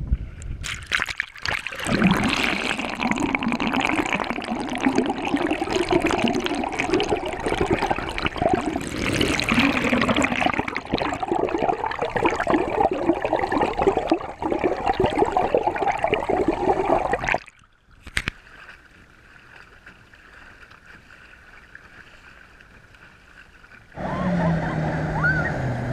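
Water rushing and gurgling around an underwater camera held beside a small electric trolling motor's spinning propeller. It cuts off suddenly after about 17 seconds to a much quieter stretch with a faint steady whine. Near the end a louder, wavering low engine hum comes in.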